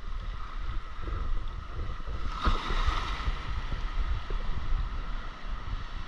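Small waves washing through shallow surf, with wind buffeting the microphone; a louder rush of water about two and a half seconds in.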